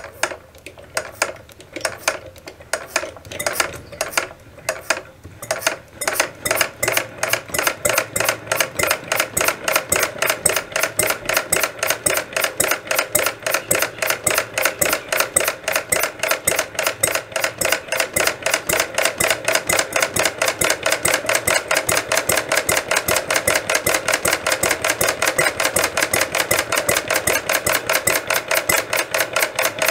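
Retrol vintage horizontal mill engine, a small single-cylinder model engine, starting up: a few uneven sharp beats over the first six seconds, then it settles into a steady, rapid, even beat of sharp clicks.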